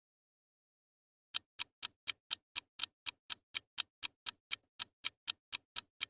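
A rapid, evenly spaced series of sharp ticks, about four a second, starting a little over a second in.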